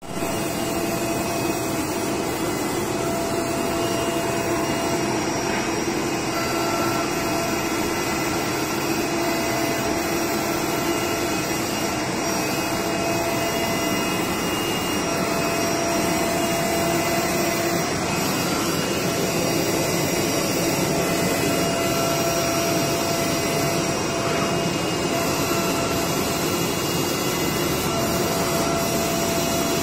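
Esko digital cutting table running: a steady rushing noise typical of its vacuum hold-down blower, with a faint whine from the moving cutting head that comes and goes.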